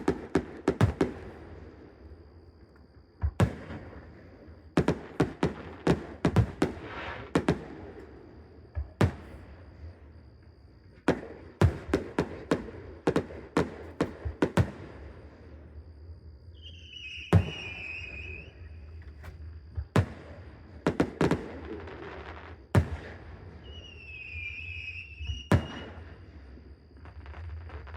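Aerial fireworks bursting overhead: sharp bangs in rapid clusters with short lulls between. A brief wavering whistle sounds twice in the second half.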